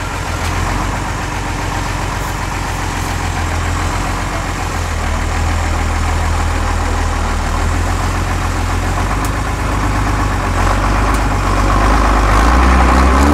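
Diesel engine of a Unimog trial truck running at low revs under load as it crawls through a water-filled pit, working a little harder near the end.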